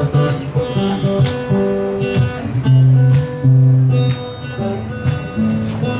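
Steel-string acoustic guitar playing a song's introduction: strummed chords and picked notes, with low bass notes ringing on.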